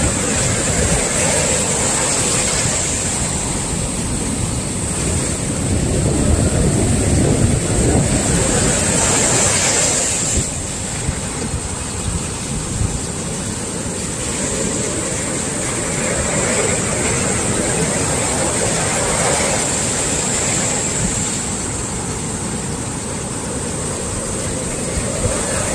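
Sea swell waves breaking on the shore: a continuous rushing surf that builds to its loudest about 6 to 10 seconds in, falls away sharply just after, and swells again later.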